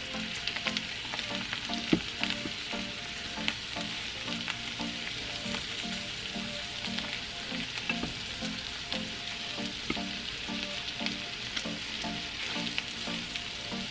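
Salmon cubes sizzling in olive oil and butter in a frying pan, with occasional light clicks as the pieces are turned. Soft background music with a steady beat runs underneath.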